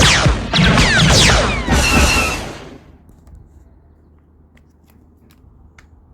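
Compressed air blasting out of an HPA-powered T4E TR68 revolver in three long, loud rushes over about three seconds, followed by a few faint clicks. The owner takes the gun to be running out of air.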